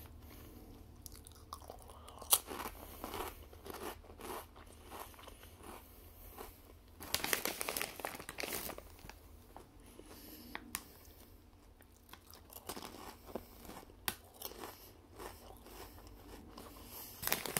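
A person biting and chewing Lay's Poppables Veggie Sea Salt potato chips close to the microphone: crisp crunches and crackling chews, with a louder run of crunching about seven seconds in.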